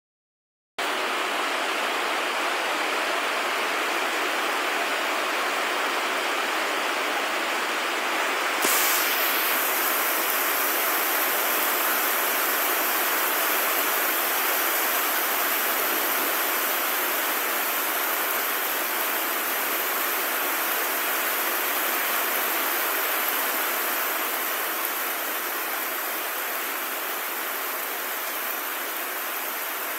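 Heavy storm rain pouring down in a dense, steady hiss. About nine seconds in it turns suddenly brighter and a little louder, and it eases slightly near the end.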